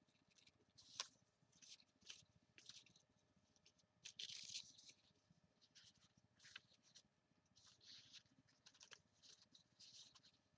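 Faint rustling and light clicks of hands sorting through craft supplies. The brief, scattered handling noises come several times a second, with a slightly louder rustle about four seconds in.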